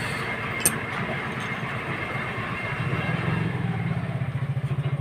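An engine running with an even, fast pulsing beat, getting louder over the last two seconds. There is one sharp click about two-thirds of a second in.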